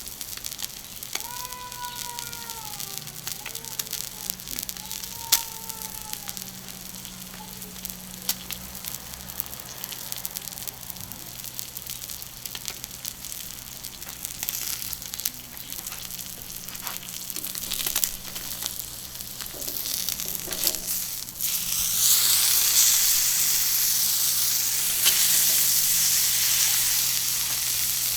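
Beef steak sizzling and crackling on a hot iron griddle, the sizzle growing much louder about 22 seconds in.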